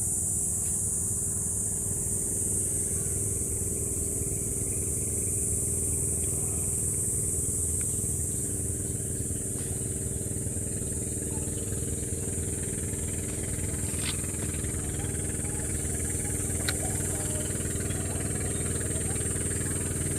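A small engine running steadily at an even speed, with a steady high-pitched hiss or drone above it and a couple of faint clicks in the second half.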